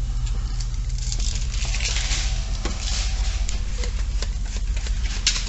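A hand spray bottle squirting water, several hissing sprays with sharp trigger clicks, over a steady low hum. A louder click comes near the end.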